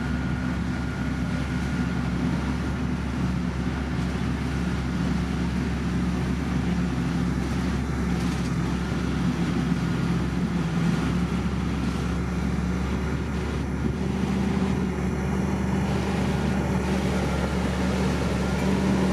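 Diesel engine of heavy road-construction machinery running steadily at a constant pitch.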